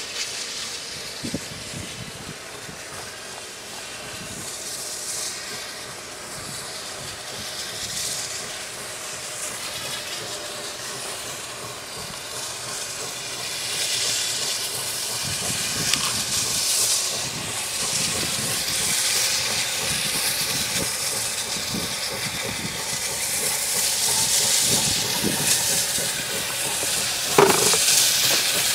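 QJ class 2-10-2 steam locomotive hauling a loaded coal train: a steady hiss of steam with the running noise of the train, growing louder as it approaches. A brief louder sound stands out near the end.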